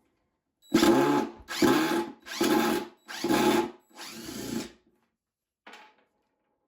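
Power drill backing screws out of the bottom of a wooden toolbox, run in five short bursts one after another, then a brief faint pulse.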